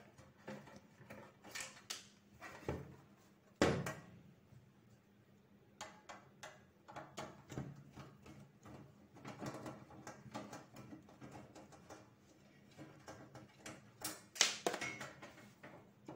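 Screwdriver turning out the small screws of an NVR's sheet-metal cabinet, with scattered metal clicks, scrapes and light knocks as the tool and case are handled. A sharper knock comes about three and a half seconds in, and a run of louder scrapes and clicks near the end as the cabinet cover is worked loose.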